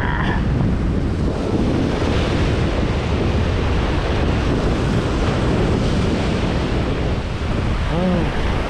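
Sea surf surging and breaking against breakwater rocks, a steady wash of water with wind buffeting the microphone.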